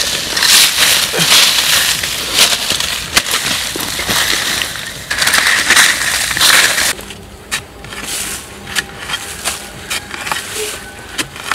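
A long blade digging and scraping into dry, sandy soil at a burrow, with a dense crunching for about seven seconds, then quieter, separate scrapes and knocks.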